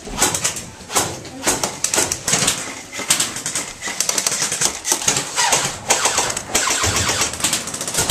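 Airsoft guns firing: a rapid mechanical clatter of shots, growing into dense strings of fire in the second half.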